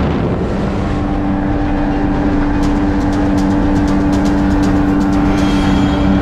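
Kawasaki STX-15F jet ski's four-stroke engine running at speed, a steady drone that rises a little in pitch about a second in, over the rush of water under the hull. A quick run of light slaps sounds in the middle.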